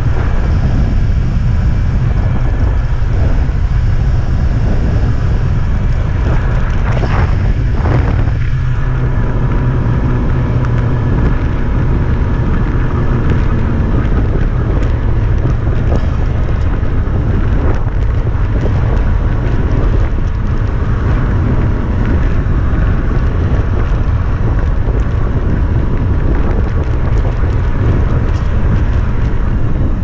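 Snowmobile running steadily at speed, its engine and track noise mixed with heavy wind buffeting on the microphone, most of the sound a constant low rush.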